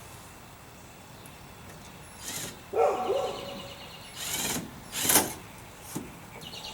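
A dog barking a few times, the loudest bark about three seconds in, mixed with short scuffing noises and a sharp click near the end.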